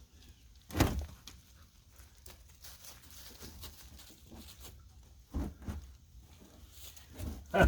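A camera being set on a tripod: a handling thump about a second in, then faint scattered clicks and shuffling, with another thump about five and a half seconds in and a few more knocks near the end.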